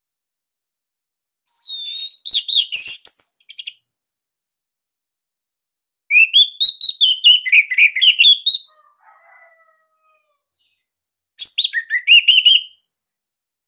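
Orange-headed thrush (anis merah) singing: three bursts of rapid, high, warbling song phrases a few seconds apart.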